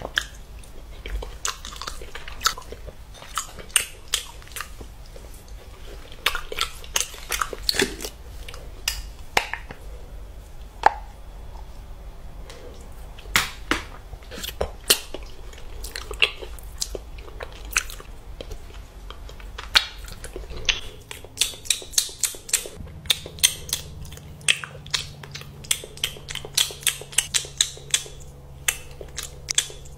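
Close-miked eating sounds: wet chewing and lip smacks on soft spoonfuls of rice with an egg-mayonnaise mix and then a chocolate spread. About two-thirds of the way in, after a change in the background hum, a quicker run of sharp wet clicks begins as a stacked ice cream cone is bitten.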